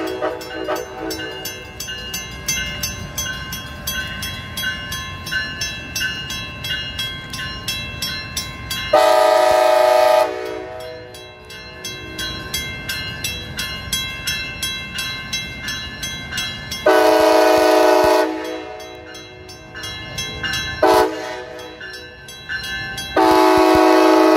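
Level-crossing warning bell dinging in a quick, even rhythm throughout. Over it, a Brightline Siemens Charger SCB-40 locomotive's horn sounds the grade-crossing signal as the train approaches the crossing: two long blasts, one short, then a final long blast that is still sounding at the end.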